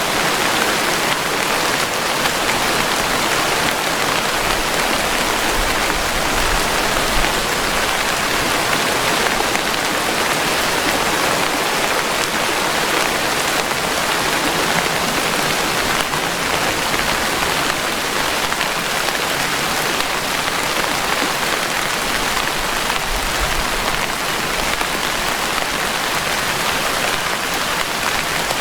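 Steady rainfall: a dense, even hiss of raindrops that keeps up without a break.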